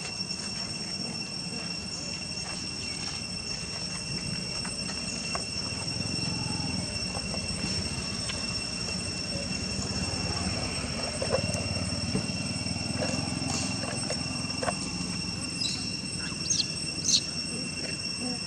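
Outdoor ambience: a steady, high-pitched insect drone holds one pitch throughout over a low rumble, with a few short, high chirps near the end.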